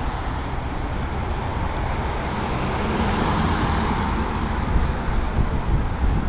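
Road traffic going by, with wind rumbling on the microphone; the traffic swells a little about three to four seconds in. No bells are ringing.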